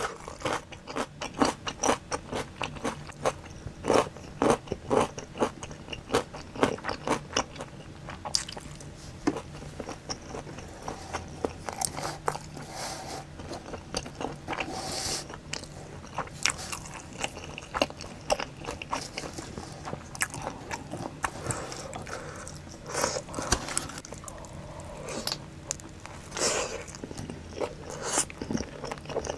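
Close-miked eating: chewing with many crisp, crunchy bites as a person eats pickled radish cubes, pizza and spicy sauced boneless chicken.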